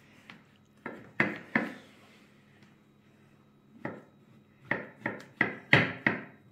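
Chef's knife chopping mushrooms on a wooden cutting board: three knocks of the blade on the board, a pause of about two seconds, then six more in quicker succession near the end.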